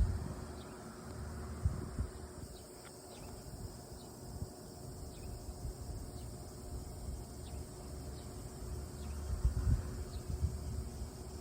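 Faint chirping of night insects: scattered short, high chirps over a steady low hum, with a few low rumbles and thumps near the start and again about nine to ten seconds in.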